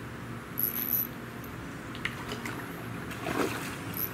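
Spinning reel's drag buzzing in short high-pitched spurts, with a few reel clicks, as a hooked peacock bass pulls line off against it.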